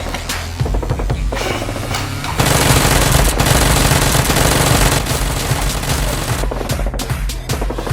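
Rapid automatic gunfire over action background music, heaviest from about two and a half to five seconds in.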